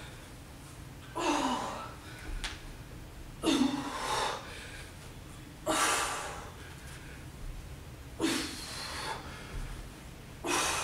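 A woman's hard, sudden exhalations, one about every two seconds, breathing out with the effort of each T-stand push-up.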